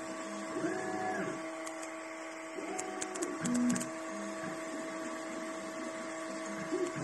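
ELEGOO Neptune 2S FDM 3D printer printing: a steady hum with several short pitched whines, rising and falling, as the stepper motors drive the print head through its moves, and a few light clicks.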